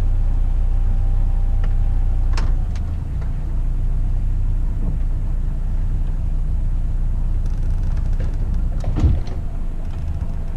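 A sailboat's auxiliary engine runs steadily at low revs, holding the boat alongside against the spring line. Its note drops a little about two and a half seconds in. A couple of short knocks and creaks come from the boat and its lines, the loudest about nine seconds in.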